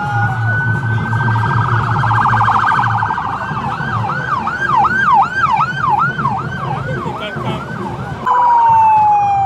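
Police vehicle sirens from a motorcade: first a high, rapidly warbling tone, then a fast yelp sweeping up and down about three times a second, and about eight seconds in a long, steadily falling tone.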